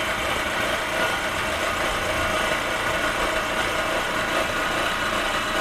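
Warm Fiat engine idling with a steady scraping, rubbing noise from the timing-belt area, present since a timing belt change. The owner thinks something is touching or rubbing there, possibly the fan.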